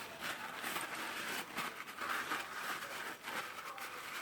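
Faint workbench handling noises: scattered small clicks and rustles as the parts of a disassembled rotary hammer drill are moved about.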